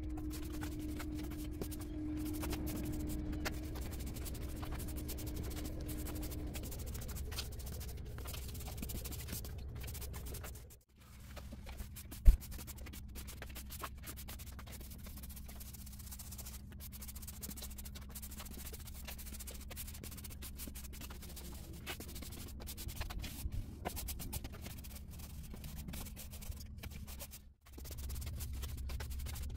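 Stiff push broom brushing sand across block paving, a continuous scratchy rub as the sand is worked into the joints after cleaning. One sharp knock stands out about twelve seconds in, over a faint steady hum.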